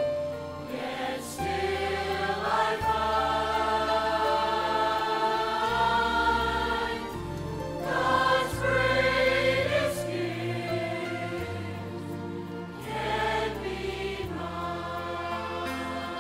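Mixed church choir of men and women singing in harmony, in long phrases that swell and ease.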